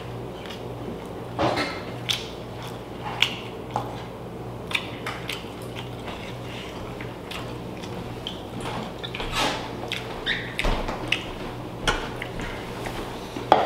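Eating sounds: chewing and lip smacks with occasional clinks of spoons on dishes, short and scattered, over a steady low hum.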